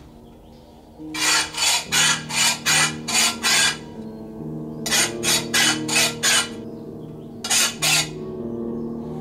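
Hand file rasped back and forth along a pole clamped in a bench vise, in quick strokes about three a second: a run of seven, a run of five, then two more. Low background music plays underneath.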